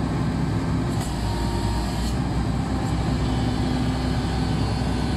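Horizontal directional drilling rig's engine running steadily, with a few faint ticks about one, two and three seconds in.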